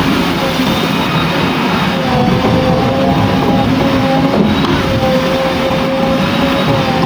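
JCB 3DX backhoe loader's diesel engine running under work, with a steady whine over the engine noise that grows stronger about two seconds in.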